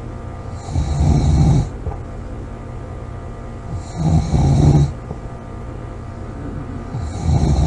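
A woman snoring loudly: three snores about three seconds apart, each about a second long, low and buzzy with a breathy hiss on top, the third starting near the end.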